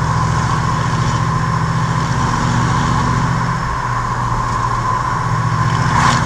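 A Chevrolet Impala's engine running steadily while the car cruises, heard from inside the cabin, with a steady higher hum of road and wind over it. There is one brief sharp noise near the end.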